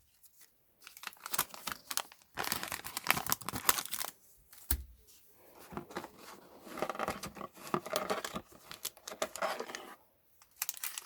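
Foil Pokémon booster pack wrapper crinkling and tearing in irregular crackly bursts as it is handled and torn open, with a single low knock about halfway through.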